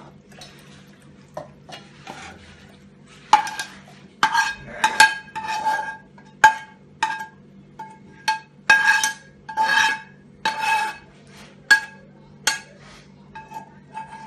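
Metal spoon scraping cooked onion-tomato masala out of a pan into a steel mixer-grinder jar. It makes repeated scrapes and sharp clinks, and the steel jar rings with each tap. A low steady hum runs underneath.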